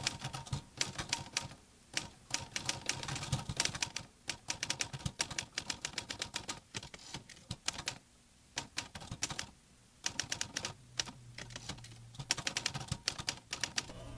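Typewriter being typed on: rapid runs of key strikes clicking, in bursts broken by short pauses.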